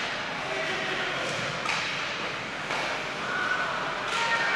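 Ice hockey rink sound during play: a steady hiss of skates on the ice under spectators' shouting voices, which build near the end, with a few sharp clacks of sticks on the puck.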